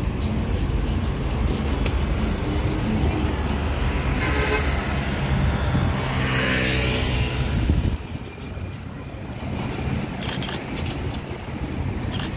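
City street traffic: vehicles passing close by with engine rumble and tyre noise, swelling loudest in the middle. About eight seconds in the sound drops suddenly to quieter, more distant traffic.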